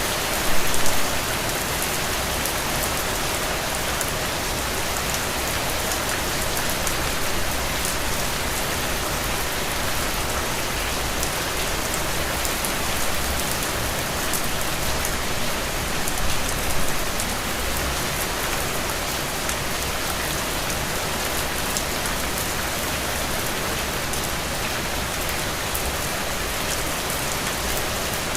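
Heavy rain falling steadily, a dense even hiss of drops hitting surfaces, with brief louder swells about a second in and again around two-thirds of the way through.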